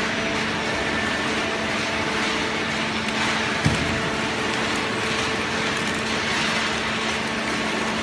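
Automatic horizontal hydraulic baler for waste cardboard running, a steady machine hum over a broad hiss. One short sharp knock about three and a half seconds in.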